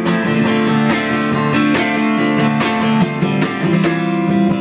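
Acoustic guitar strummed steadily in a chord pattern, the chords ringing on between strokes, with a chord change a little after three seconds in. No voice is heard.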